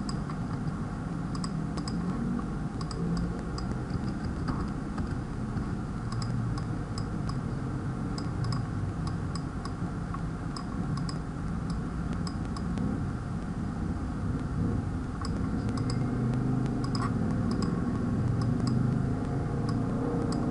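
Light, irregular clicks of a computer keyboard and mouse, several a second, over a steady low hum.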